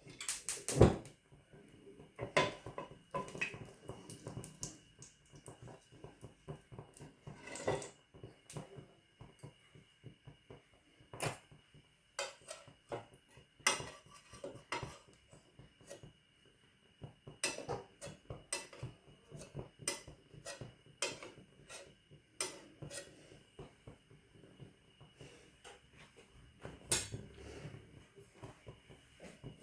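Cooking utensils clinking and knocking against a pan in scattered, irregular strokes, with the loudest knocks about a second in and near the end.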